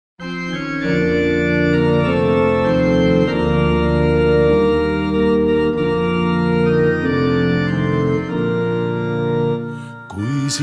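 Organ playing a slow introduction of held chords that change every second or so, dipping in level near the end.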